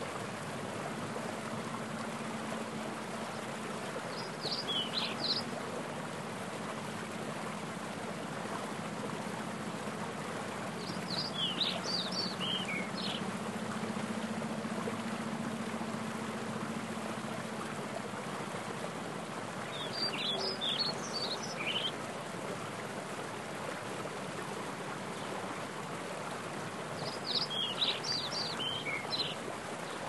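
Steady rush of a mountain stream with rain falling on its pool. A bird sings a short phrase of quick falling notes four times, roughly every seven or eight seconds.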